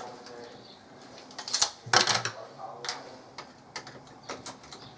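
Irregular clicks and knocks of small metal door-handle parts and tools being handled, with two louder knocks about one and a half to two seconds in.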